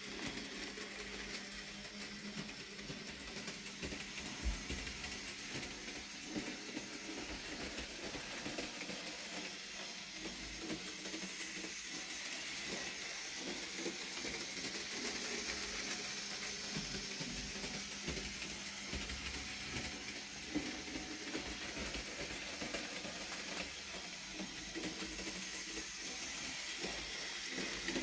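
Bachmann Skarloey model locomotive running along the track with its train of wagons: a steady hissing whir from its small motor and wheels, with occasional small clicks as the wheels pass over rail joints.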